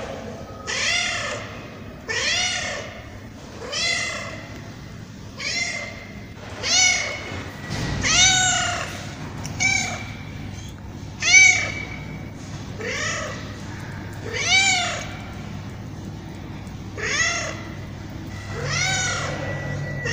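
Tabby cat meowing over and over, about a dozen meows, each rising then falling in pitch, with a short pause about three-quarters of the way through.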